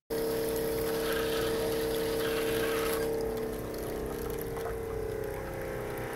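Antifreeze pouring and splashing from a faucet into a plastic bucket over the steady hum of a boat freshwater system's electric pressure pump, as the system is filled with non-toxic antifreeze to winterize it. About three seconds in, the splashing dies away as the tap is closed, leaving the pump humming on.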